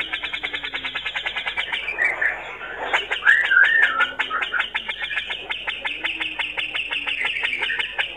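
Male grey-cheeked bulbul (cucak jenggot) singing a fast chattering rattle of about ten notes a second. The rattle breaks briefly about two seconds in, then goes on with a short warbled whistle near the start of the second run.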